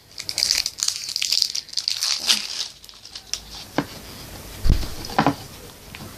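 Plastic packaging crinkling and rustling for about three seconds, then a few scattered clicks and a dull thump as it is handled.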